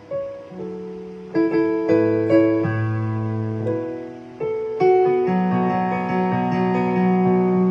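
Solo piano playing a slow melody over held chords, each new note or chord struck and left ringing.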